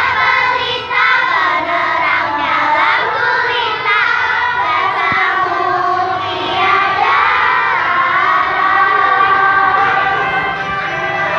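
A large group of schoolchildren singing together loudly, many high voices overlapping.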